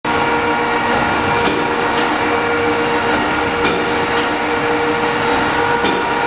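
Crossley horizontal stationary mill engine running steadily, with a constant mechanical hum and pairs of sharp clicks from its valve gear repeating about every two seconds.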